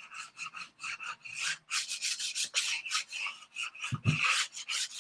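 Chalk pastel scribbled back and forth on sketchbook paper in quick, rasping strokes, about four a second.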